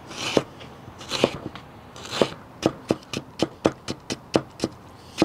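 Chef's knife cutting a carrot on a cutting board: three slower slicing strokes about a second apart, then from about halfway a steady run of sharp knife taps on the board, about four a second, as the carrot is cut into thin strips.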